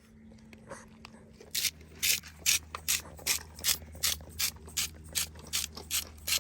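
Hand-twisted seasoning grinder being cranked over the food in even, gritty ratcheting strokes, about two and a half a second, starting about one and a half seconds in.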